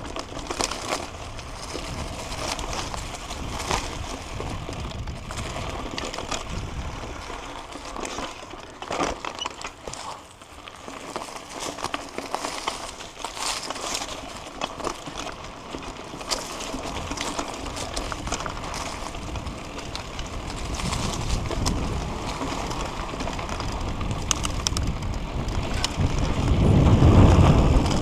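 Mountain bike rolling over a dirt and leaf-littered trail: tyre noise with scattered rattles and clicks from the bike. Low wind rumble on the microphone builds in the last few seconds as the bike heads downhill.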